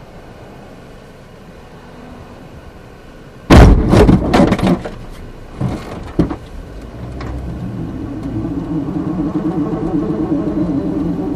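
A car crash heard from inside the recording car: a sudden, very loud impact about three and a half seconds in, with crunching and breaking for about a second, then two smaller knocks.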